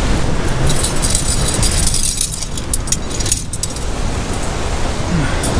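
Surf breaking against a rock ledge with wind rumbling on the microphone. From about one to three and a half seconds in comes a run of light metallic clinks and rustling as a climbing rope and its metal fitting are handled.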